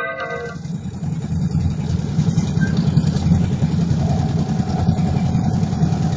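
ATV engine running steadily at low revs, with a faint steady whine joining about four seconds in.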